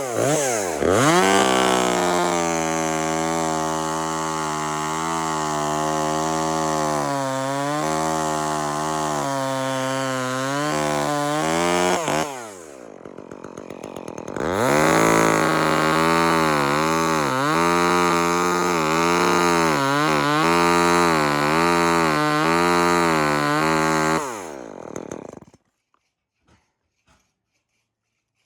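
Chainsaw running at high revs, its pitch wavering up and down as it is worked. About twelve seconds in it drops to a low idle, revs up again two seconds later, then winds down and dies away about three seconds before the end.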